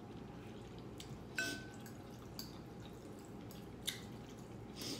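A metal fork working sauced noodles in a glass bowl: a few scattered, sharp, wet-sounding clicks, the first ringing briefly like a tap on glass.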